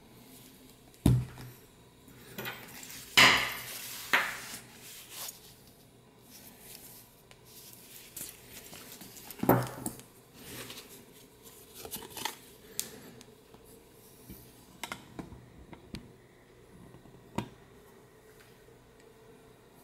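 Handling noises from a Pierre Hardy calfskin leather messenger bag being moved and set down on a cloth dust bag. Scattered knocks and light clinks from the strap's metal clasp, with soft rustling; the loudest knocks come about a second in, about three seconds in, and near halfway.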